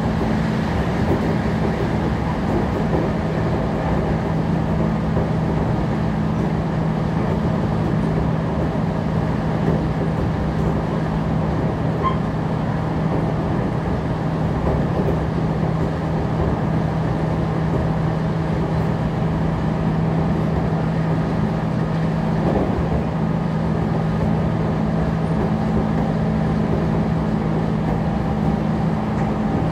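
Interior running sound of a JR Kyushu 811 series 100 subseries electric train motor car (MoHa 811-108) cruising at steady speed: continuous wheel-on-rail rumble with a steady low hum.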